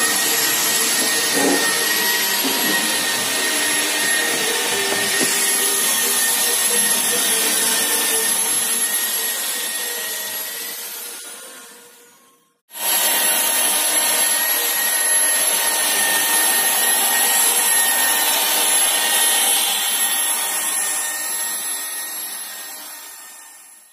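A steady machine noise: a loud hiss with a high whine through it, in two stretches. The first fades out and stops about twelve seconds in, then the same noise starts again suddenly and fades near the end.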